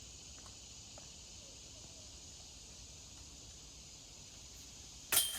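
Steady high drone of insects, then about five seconds in a disc slams into the metal chains of a disc golf basket with a sharp clash and brief jingle: a made putt.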